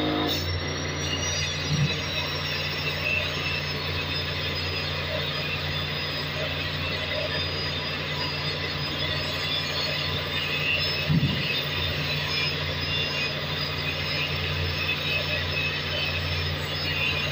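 Steady low drone of running machinery in a ship's engine room, with metallic clicking and scraping over it and two brief louder knocks, about two seconds in and again near the middle.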